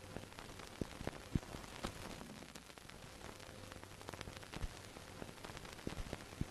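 Faint surface-noise crackle: a steady hiss with irregular clicks and pops.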